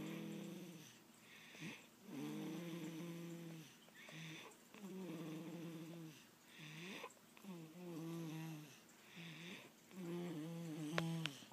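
A baby snoring in slow, regular breaths: a pitched snore lasting about a second, then a breathy rush of air, repeating about every two and a half seconds, five snores in all. A sharp click near the end.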